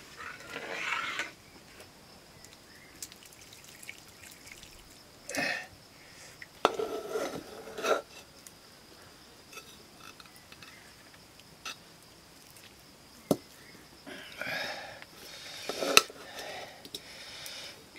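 Metal spoon scraping and knocking against a metal cooking pot as cooked rice is scooped out and dropped into an iron wok. Scattered sharp clinks between stretches of scraping.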